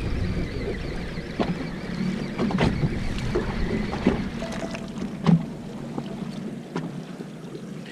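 A fishing boat's engine hums steadily, with several sharp clicks and knocks from fishing tackle being handled while a baitcasting reel is wound in.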